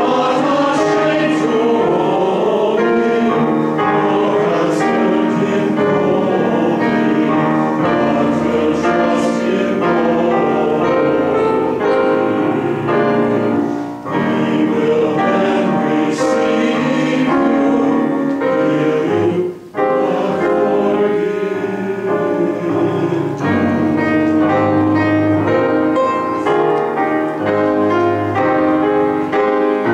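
Mixed choir singing in parts with piano accompaniment, breaking off briefly twice, about 14 and 20 seconds in.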